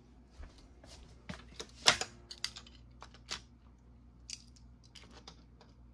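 Scattered light plastic clicks and taps, with one sharper click about two seconds in, as a slot car is handled and set on the track. A faint steady hum lies under them.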